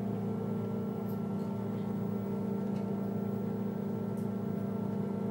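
Ferry's engines running, heard inside the passenger cabin as a steady low hum with several constant tones and no change in pace.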